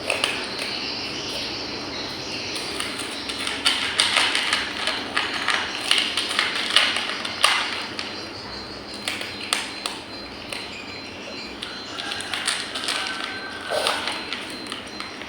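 Cat eating, with irregular sharp clicks and taps of chewing and food against the bowl over a steady background hiss; the taps are busiest in the middle.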